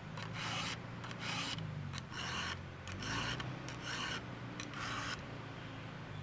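Round file rasping across the cutters of a 3/8-pitch Oregon full-chisel chainsaw chain on a Stihl 661C bar, sharpening it by hand. There are six hissing push strokes a little under a second apart, and they stop about a second before the end.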